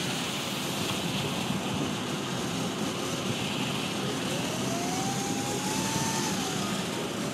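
Steady rush of wind and road noise from a moving car, with a faint whine that rises and then falls in pitch about halfway through.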